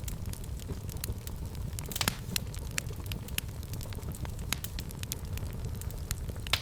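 Fireplace fire crackling and popping over a low, steady rumble, with a louder cluster of pops about two seconds in.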